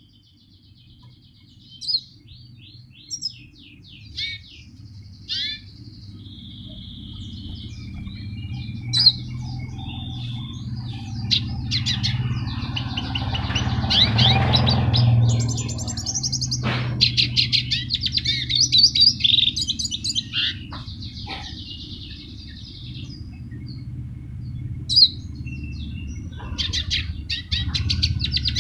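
A songbird singing: sharp chirps and fast trilled phrases, growing denser toward the end, over a steady low hum.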